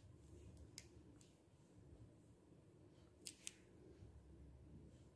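Near silence with a few faint clicks and taps of small objects being handled: one about a second in and a quick pair a little past three seconds in.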